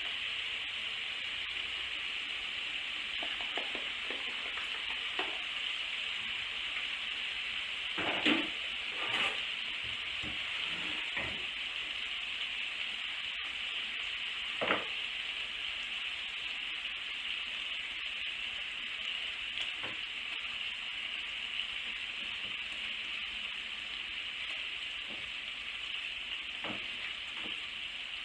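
Bacon frying in a pan, a steady sizzle throughout, with a few short knocks of kitchen handling, the loudest about eight and nine seconds in and another near fifteen seconds.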